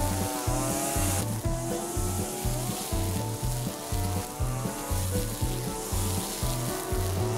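Background music with a steady bass beat about twice a second, a wavering melody line and a hissing, distorted top.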